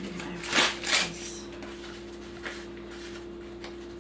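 White paper wrapping crinkling as it is opened by hand, with two louder rustles about half a second and a second in, then softer handling.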